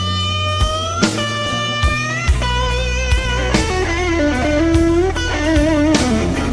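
Blues music: electric guitar playing long, bent notes with vibrato between sung lines, over bass and a steady drum beat.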